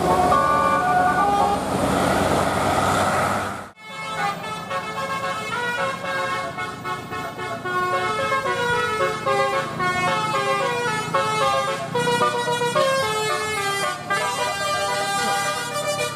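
Bus telolet horn, a multi-tone air horn, playing a rapid tune of short stepped notes. There is a noisy rush under it just before it cuts off abruptly almost four seconds in, and the tune then carries on.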